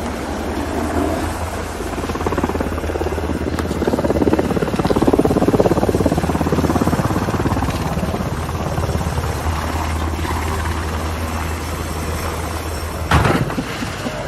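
Helicopter running: a steady rotor chop and engine rumble, louder around the middle. A loud, sudden burst of noise comes near the end.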